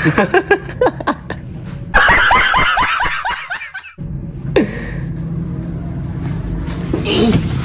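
Laughter in short bursts, then about two seconds of a denser laugh that cuts in and stops abruptly, like a laugh sound effect edited in.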